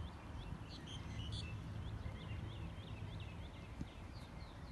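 Small birds chirping in a quick, regular series of short calls, about three or four a second, with a few brighter calls about a second in, over a steady low rumble.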